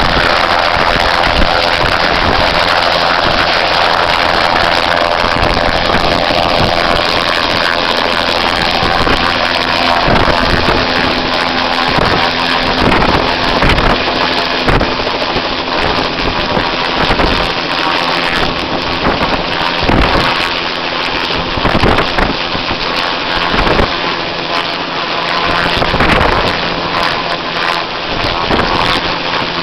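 TH-57B Sea Ranger helicopter (Navy Bell 206 JetRanger) hovering close by during power checks: its Allison turboshaft engine and rotor run loud and steady, with a steady low hum and a hiss. From about the middle on, thumps of rotor downwash buffet the microphone.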